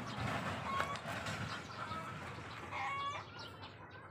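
Birds calling outdoors: a few short pitched calls, the clearest a louder call about three seconds in.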